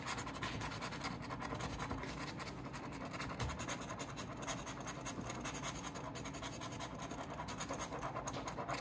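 A coin scratching the coating off a paper scratch-off lottery ticket: steady, rapid back-and-forth scraping strokes, many a second.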